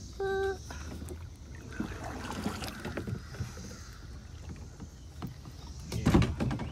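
Double-bladed kayak paddle strokes dipping and pulling through calm lake water, the loudest stroke about six seconds in. A brief high tone sounds about a quarter second in.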